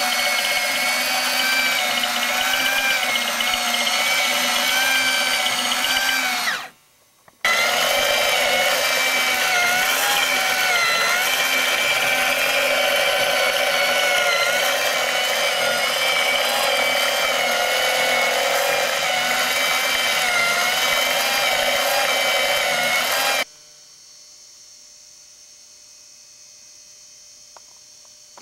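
Motorized BMW R90S boxer engine plastic model running, its small electric motor whirring as it drives the plastic crank, pistons and gears, the pitch wavering slightly. It stops for under a second about a quarter of the way in, starts again, and cuts off abruptly about four-fifths of the way through, leaving only a faint hum.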